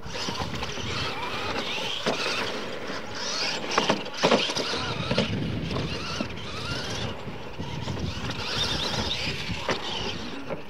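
Two radio-controlled monster trucks racing on dirt: their motors whine up and down in pitch over steady tyre-and-dirt noise, with a few sharp knocks about four seconds in.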